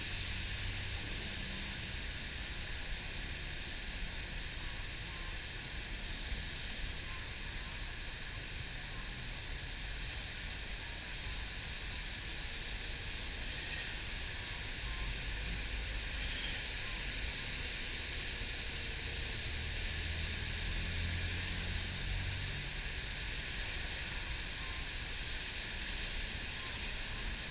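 Ride noise inside a moving city bus in the rain: a low engine rumble under a steady hiss of rain and wet road, swelling a little about twenty seconds in.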